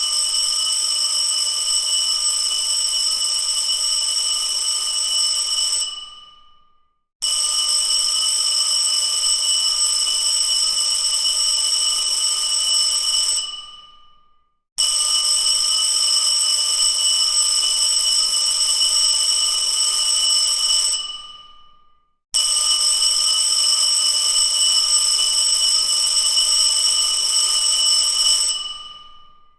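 School bell ringing in four long rings of about six seconds each, with a steady metallic tone; each ring fades out over about a second before the next starts.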